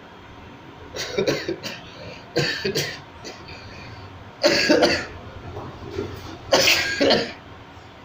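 A man sneezing four times in a row, the last two sneezes the loudest. The sneezes are set off on purpose by tickling inside his nose with a toothpick.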